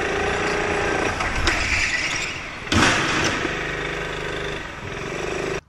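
Go-kart engine running at speed, heard from onboard, its pitch dropping and rising with the throttle. About two and a half seconds in there is a sudden loud hit or scrape as the kart spins round. The engine then runs lower before picking up again.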